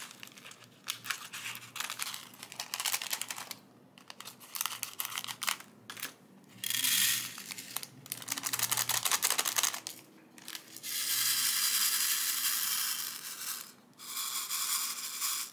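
Small plastic bag crinkling as it is cut and opened, then teardrop-shaped resin diamond-painting drills pouring and rattling in a plastic drill tray, shaken in several longer bursts to turn the drills face up.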